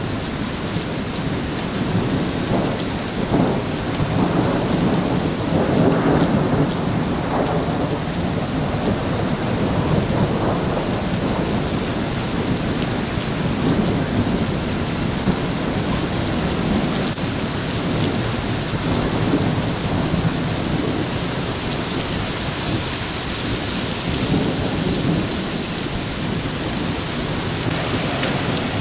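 Heavy rain from a supercell thunderstorm pouring down in a steady hiss, with thunder rolling in low swells, strongest a few seconds in. The rain's hiss grows brighter for a few seconds past the middle.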